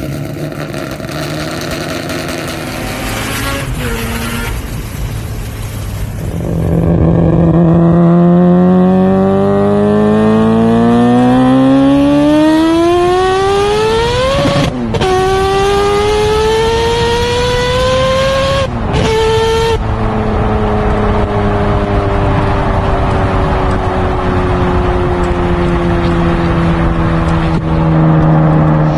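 Four-rotor Mazda R26B rotary racing engine. It runs low and steady at first, then accelerates hard with its pitch climbing, shifts up twice, and its pitch sinks slowly through the last third.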